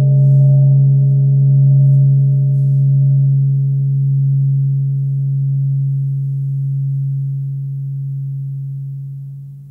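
Large hanging Tibetan gong ringing on after a strike: a deep steady hum with fainter higher overtones, slowly dying away, then fading quickly near the end as a hand damps the gong's face.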